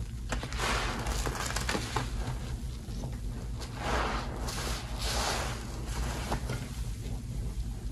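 A sponge squeezed and plunged by hand in a basin of thick soap suds: wet squishing with crackling foam, in several swells as it is pressed and worked about.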